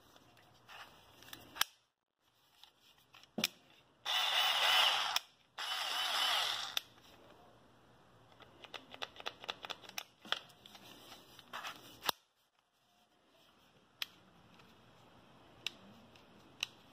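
Bauer 4V cordless screwdriver being handled: sharp plastic clicks from its housing and switches as the grip is folded and worked, and twice its motor runs for about a second, about four and five and a half seconds in, spinning the bit.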